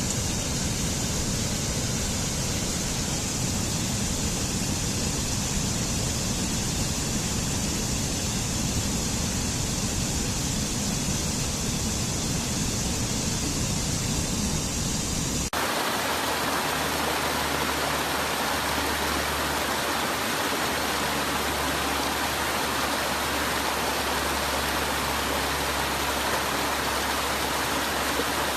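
Waterfall rushing steadily, a dense even noise of falling water. About fifteen seconds in it cuts abruptly to a different waterfall recording with a different balance of rumble and hiss.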